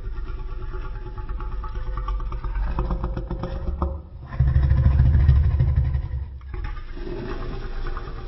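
Custom Godzillasaurus monster sound effect: deep, rumbling growling roars layered from slowed-down animal and dinosaur roars. They come in three runs, broken briefly about four and six and a half seconds in, and the middle run is the loudest.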